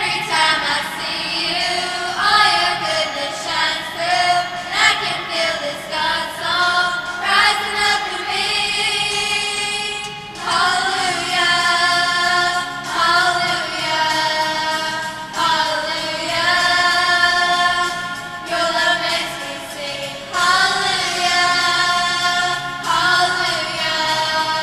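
A school choir singing a seasonal song in sustained phrases, with short breaks between them.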